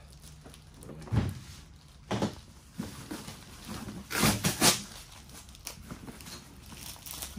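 Cardboard box and plastic packaging being handled and pulled open: a few short scrapes and rustles, the loudest cluster about four seconds in.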